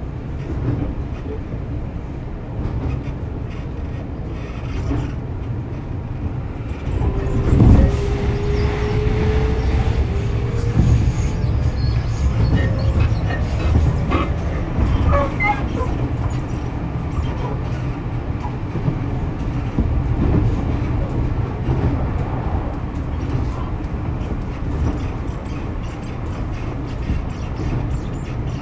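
Tokyu 6000 series electric train running: a steady low rumble of the moving train. About seven seconds in it swells to its loudest, and a faint tone rises slightly for a few seconds.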